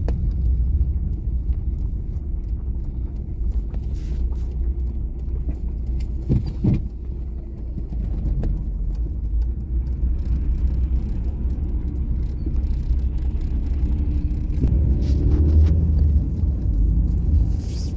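Car driving along a town road, heard from inside the cabin: a steady low rumble of engine and tyre noise, with a brief knock about six and a half seconds in.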